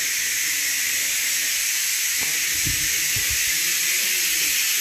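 Steady loud hiss, with a few faint knocks about halfway through.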